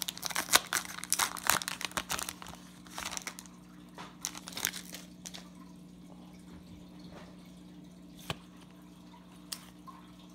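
Plastic wrappers of Topps baseball card packs crinkling and tearing as they are opened. The rustling is busiest for the first three seconds, then thins to a few scattered clicks and rustles over a faint steady hum.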